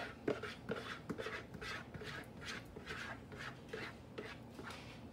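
A spoon stirring thick chili in a cooking pot, scraping and knocking against the pot in a steady rhythm of about three strokes a second, working in a flour thickener.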